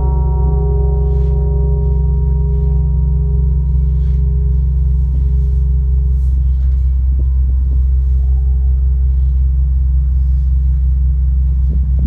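Large Russian bell, rung by its swinging clapper, humming on and dying away after a strike: its higher tones fade out within the first few seconds while a few lower tones linger. A loud steady low rumble runs underneath.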